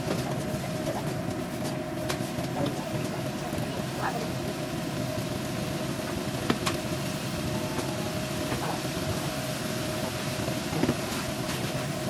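Beef and bamboo shoot strips sizzling in a wok over a gas burner, with a spatula now and then scraping and tapping against the pan in a few sharp clicks. A steady hum runs underneath.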